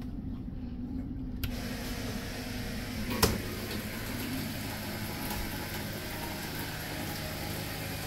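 A steady low machine hum with several fixed tones. About a second and a half in, a steady hiss starts abruptly and keeps going, and a single sharp knock sounds about three seconds in.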